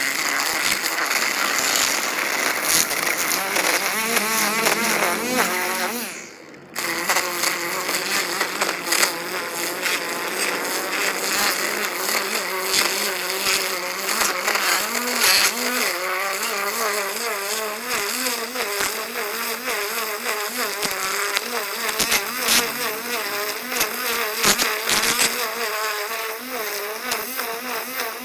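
String trimmer (weed eater) running and cutting, a continuous buzz whose pitch wavers up and down with the throttle. The level dips briefly about six seconds in, then comes back.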